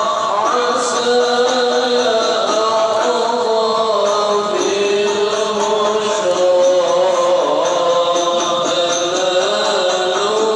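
Men's voices chanting an Islamic devotional recitation over a public-address system, in long held notes that rise and fall slowly.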